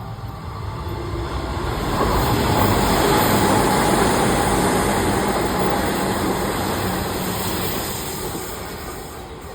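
Electric express trains running past at speed on the rails, a rumble of wheels and track noise that swells to a peak and then fades away.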